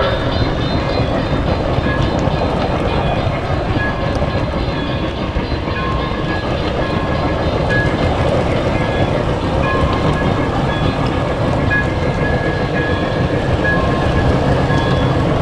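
Polar Express O gauge model train running steadily along its track.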